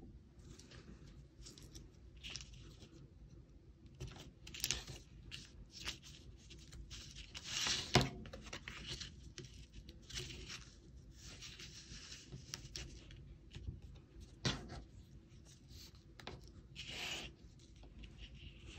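Thin double-sided tape being pulled off its roll and pressed onto cardstock: scattered short ripping and rubbing noises, with a sharp click about eight seconds in and another near fifteen seconds in.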